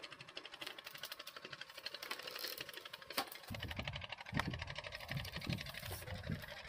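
Fishing reel ticking rapidly and evenly, a fast mechanical clicking, with a couple of sharper clicks and some soft low bumps from about halfway through.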